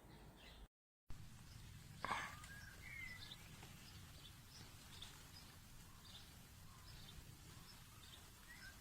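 Faint outdoor ambience with birds chirping now and then over a low rumble. There is a single sharp knock about two seconds in, and the sound cuts out completely for a moment just under a second in.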